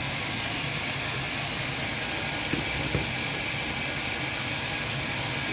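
Steady running-machinery noise, a low hum under an even hiss, with two faint clicks a little past the middle.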